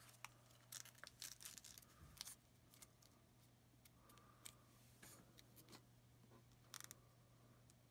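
Faint near-silence with scattered soft clicks and rustles of trading cards being handled and slid against one another, over a low steady hum.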